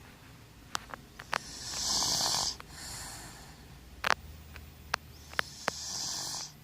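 Snoring: a loud, hissy snoring breath about two seconds in and another near the end, with a weaker breath between them, over a steady low hum. A few sharp clicks are scattered through.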